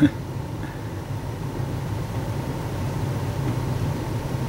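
Steady low background hum of a running machine such as an air conditioner or fan, with a faint thin whine above it.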